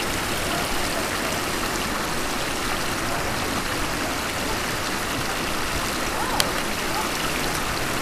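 River water rushing steadily over rocky shallows, an even hiss with no let-up, and a single light click about six seconds in.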